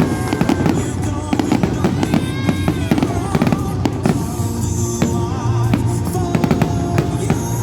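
Fireworks display: rapid, dense cracks and bangs of bursting shells and crackling effects, with music playing over them.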